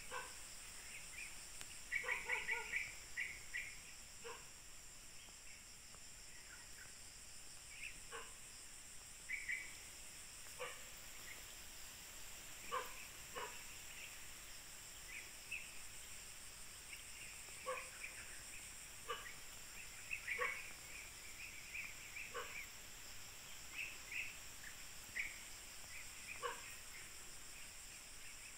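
Faint outdoor ambience: a steady high insect drone, with short bird calls every second or two.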